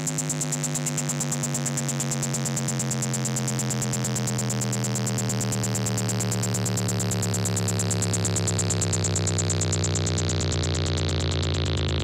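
A beatless techno breakdown: a sustained synthesizer drone holds a low chord, with a fast-pulsing high hiss on top that is filtered away near the end.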